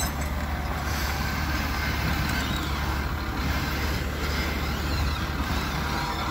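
Flatbed tow truck's engine running with a steady low hum while its winch slowly pulls a pickup up onto the tilted bed.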